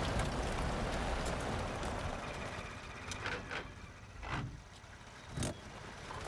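Vintage truck's engine running as it drives, a steady rumble that dies away after about two and a half seconds. A few short, sharp knocks or crunches follow.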